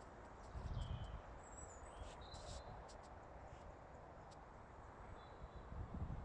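Quiet outdoor ambience: a few short, high bird chirps over a steady faint background hiss, with low rumbles on the microphone about half a second in and again near the end.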